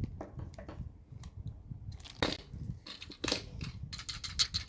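Plastic packaging rustling and crinkling while small plastic toy pieces are handled, with scattered light clicks and a denser crinkle near the end.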